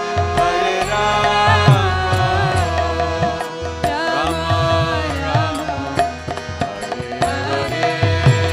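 Kirtan music without lead vocals: a harmonium holds chords under a trumpet melody, while a mridanga drum plays low strokes and small hand cymbals (karatalas) click out the beat.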